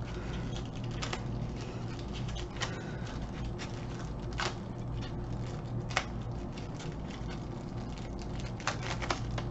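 Small clicks and light rustling as a pair of sunglasses is handled and unwrapped from its packaging, scattered irregularly, over a steady low hum.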